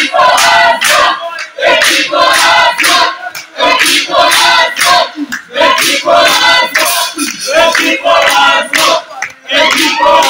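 A large group of voices singing together loudly, in short phrases about a second long with brief breaks between them.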